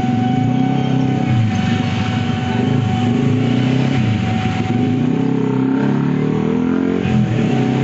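Motor scooter engines passing close by, rising and falling, at a railway level crossing. Over them runs the crossing's steady, high-pitched electronic warning alarm.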